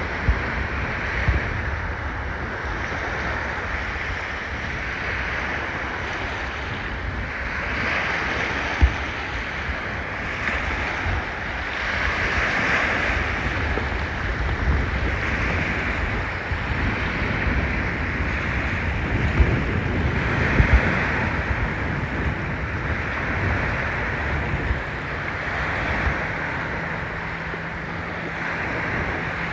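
Strong wind buffeting the microphone over small choppy waves washing and breaking along the shore: a steady rush that swells and eases every few seconds, with low rumbling gusts.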